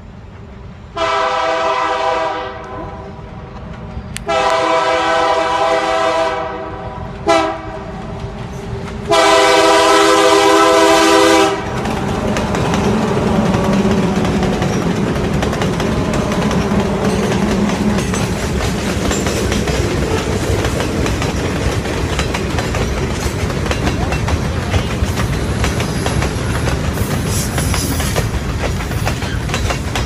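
Diesel freight locomotive's multi-chime air horn sounding long, long, short, long: the standard grade-crossing signal. It is followed by the locomotive's engine passing close by and a long freight train of boxcars and covered hoppers rolling past with steady wheel clatter on the rails.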